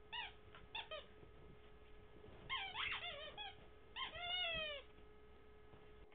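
Yellow spiky rubber squeaky toy squeaking as a chocolate Labrador puppy chews it: a few short squeaks in the first second, a quick run of squeaks about halfway, and one longer squeak falling in pitch near the end.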